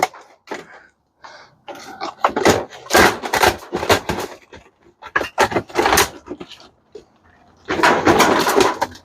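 Clattering, knocks and rattles as a dishwasher is pulled apart by hand, in several bursts of rapid clicks with short pauses between.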